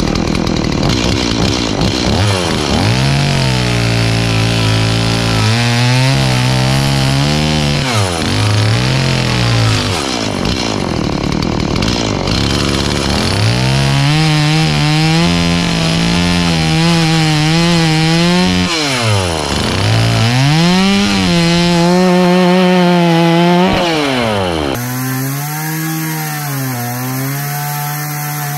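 Two-stroke chainsaw cutting up old deck framing. The engine runs loud and its pitch repeatedly drops and climbs back, about five times, as it bites into the wood and is throttled between cuts.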